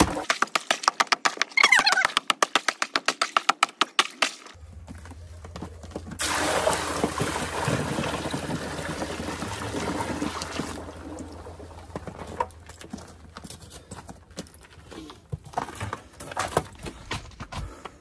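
Frozen water in a rubber stock tank being broken up with a long-handled, metal-tipped tool: rapid strikes and cracking of ice, several a second, for about four and a half seconds. About six seconds in, water poured from a 5-gallon bucket runs onto the broken ice for about four and a half seconds.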